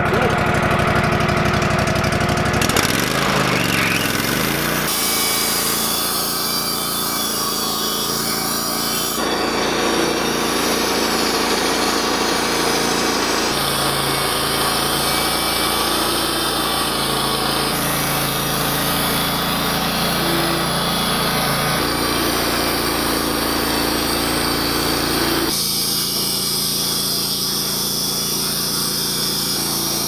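Wood-Mizer LT15 band sawmill running and sawing through a large timber, cutting an 8x12 beam. Its tone and pitch shift several times along the way.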